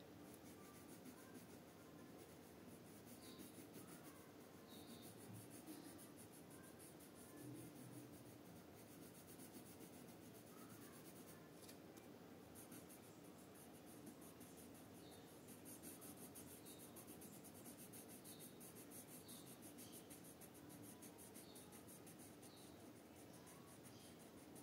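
Red colored pencil scratching across paper in quick repeated back-and-forth strokes, faint.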